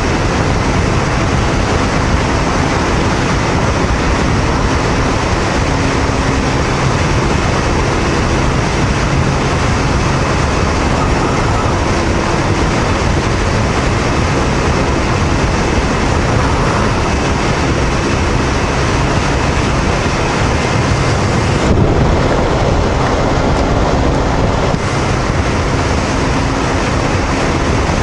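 Steady wind rush over the microphone mixed with the running of a Honda VTR250's 250 cc V-twin engine, cruising at expressway speed inside a road tunnel.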